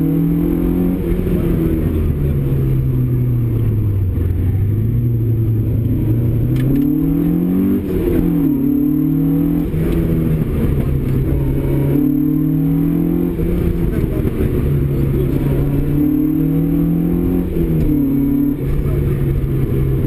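Opel Kadett GT/E rally car's four-cylinder engine heard from inside the cabin, driven hard: the revs climb, fall back as the car slows, and drop sharply at gear changes several times.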